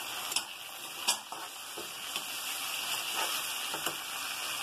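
Chopped tomatoes and onions sizzling steadily in hot oil in a steel kadai. A steel spoon clicks and scrapes against the pan a few times.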